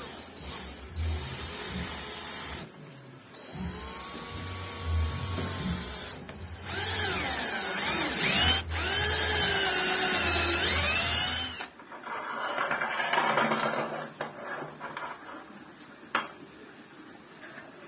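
Handheld power drill driving screws into a wooden jig. Its motor whines in several bursts, and the pitch rises and falls as the trigger and load change. The drill stops about twelve seconds in, followed by light handling noise and a single click near the end.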